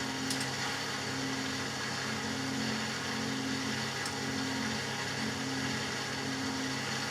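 Matura Autostatic 850 washing machine running: a steady motor hum with a tone that swells and fades about once a second, and a few faint ticks.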